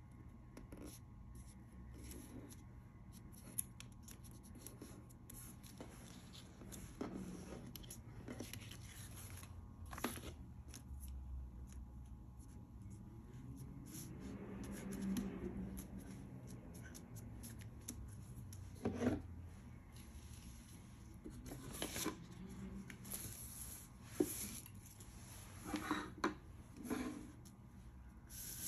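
Faint rustling and crinkling of folded paper as hands fold it and press it flat, with scattered light taps and rubs against a wooden tabletop.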